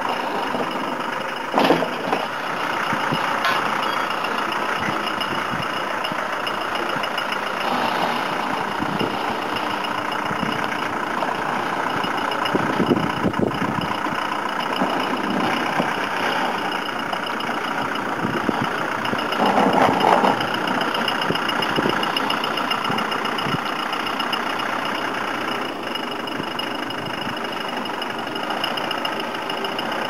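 Land Rover Defender running at low speed while pushing snow with a front-mounted steel snowplough: a steady, noisy mix of engine and plough on snow, with a few short louder swells, one about two seconds in and a longer one around twenty seconds in.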